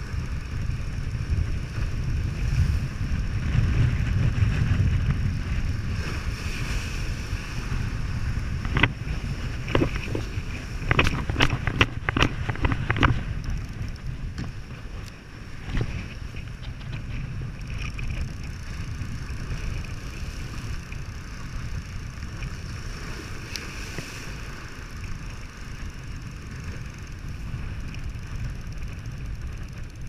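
Strong gusty wind buffeting the microphone as a low, steady rumble, heaviest in the first several seconds, over rough surf washing against jetty rocks. About nine to thirteen seconds in comes a quick run of sharp clicks and taps.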